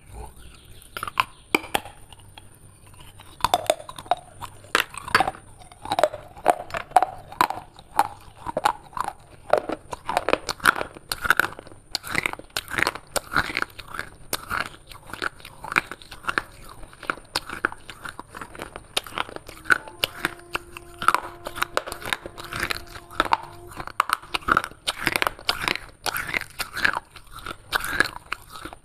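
Close-up chewing of broken fired-clay shards: crisp, rapid cracking and crunching in the mouth. A few cracks at first, then dense crunching from about three seconds in.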